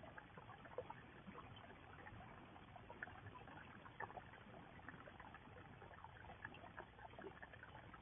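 Faint steady trickle of water into a small garden pond, with many small splashy ticks.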